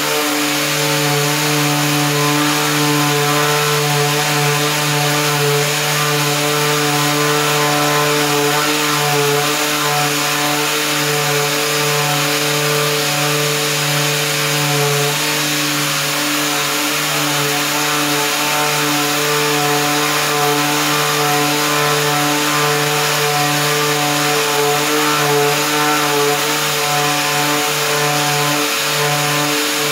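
Power sander running steadily against the plastic of a car's front bumper, a steady hum over a rasping hiss as it sands the old paint off.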